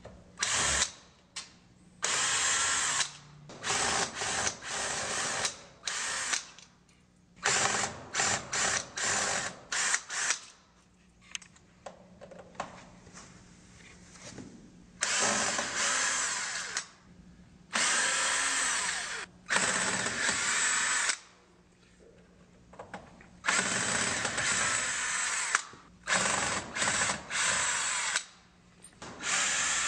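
Porter-Cable cordless drill/driver backing screws out of a multi-point lock's drive rail. It runs in many separate bursts, from short blips to runs of a second or two, with pauses between them and a longer pause about halfway through.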